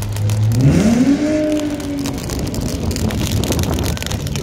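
Car engine idling, then revving sharply about half a second in, holding high revs for about a second and a half, then dropping back.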